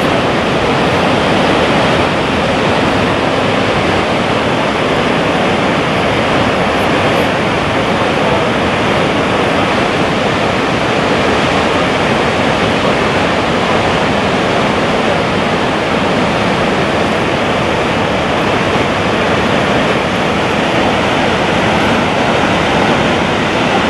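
The steady rush of Gullfoss, a broad two-stage waterfall, pouring heavily over its rock steps.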